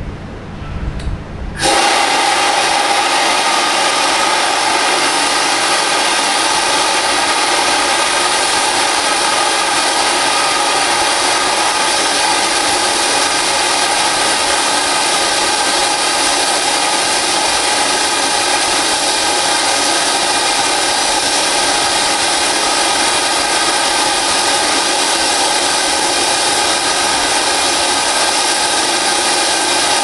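Compressed-air-operated wet and dry vacuum cleaner sucking up spilled flux powder through a round brush nozzle: a loud, steady rush of air with a constant whine in it, starting abruptly about two seconds in.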